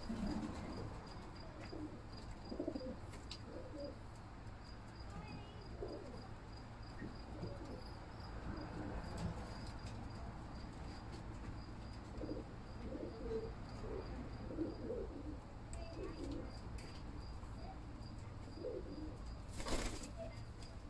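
Kamangar domestic pigeons cooing again and again in low calls. A short loud burst of wing flapping comes near the end.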